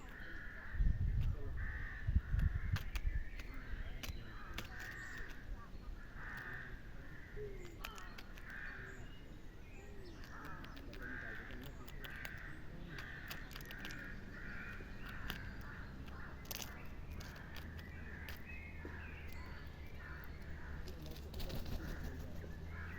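Raven giving a long run of short, repeated calls, one every half second to a second, with scattered sharp clicks. Two loud low thumps come about one and two and a half seconds in.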